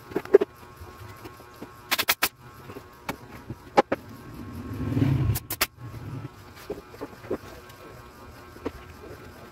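Workshop knocks and clicks as plywood panels and tools are handled during cabinet assembly. There are sharp strikes, two of them in quick threes. A passing motor vehicle's engine swells and fades in the middle.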